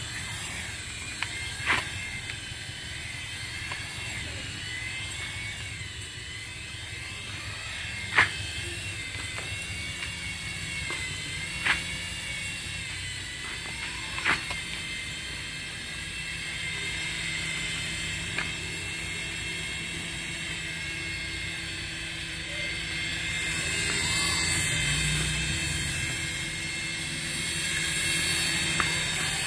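Electric motors and rotor blades of an HX708 toy RC helicopter whirring steadily, with a sharp tap every few seconds. The whirr grows louder in the last few seconds as the helicopter lifts off and flies.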